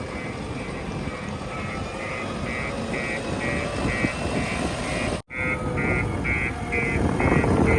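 Diesel engine of a JCB 3DX backhoe loader running under working load, getting louder near the end, with a reversing alarm beeping about twice a second. The sound drops out for an instant about five seconds in.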